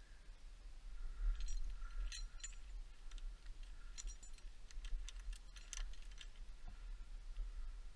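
Light metallic clinking and jingling in short clusters, loosest about a second and two seconds in and again around four to six seconds, over a steady low rumble; no saw is running.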